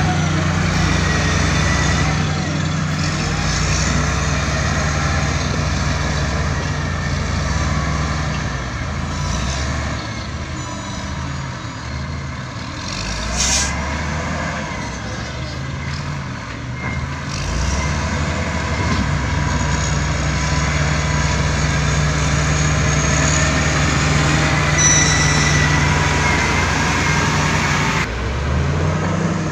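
Diesel engines of a wheel loader and bulldozer working. The engine note shifts up and down under changing load, most in the middle, with thin high squeals now and then and a sharp knock about halfway through.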